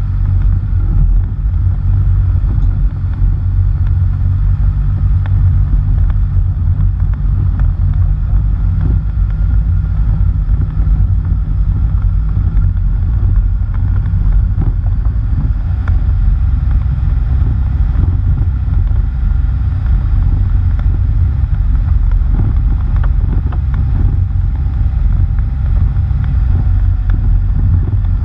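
Steady low rumble of wind buffeting a GoPro on a moving vehicle's front bumper, mixed with tyre noise from a dirt road and scattered small ticks. The vehicle itself adds little engine sound.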